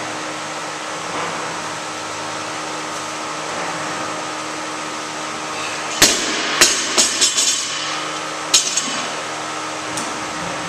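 Loaded barbell with black bumper plates dropped onto a lifting platform: one loud bang about six seconds in, then a few quick bounces dying away and a second clank a couple of seconds later. A steady fan hum runs underneath.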